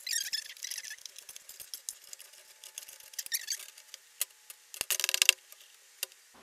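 Knife blade scraping and squeaking against the inside walls of a metal loaf pan as it is run around the edge of a baked loaf, for about the first three and a half seconds. About five seconds in, a quick run of metallic knocks as the upturned pan is set down and tapped on a wire cooling rack to release the bread.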